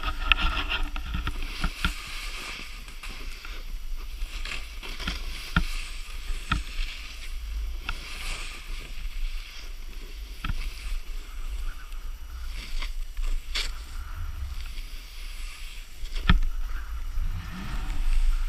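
Snowboard sliding and carving through powder snow: a steady hiss of the board and spraying snow over low wind rumble on the action-camera microphone, with scattered sharp knocks.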